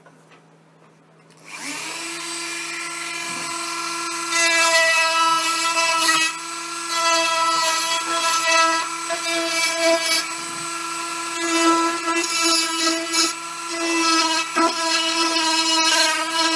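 Dremel rotary tool on a flexible shaft starts up about a second and a half in, then runs with a steady whine. From about four seconds its carving bit cuts into the oak, and the level rises and wavers as it bites.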